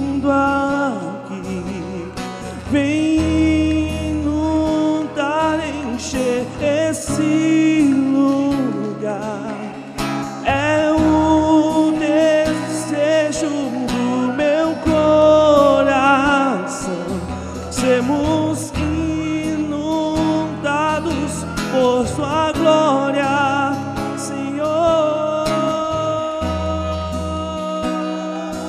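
Gospel worship music: a singer over a band with guitar, holding long bending notes.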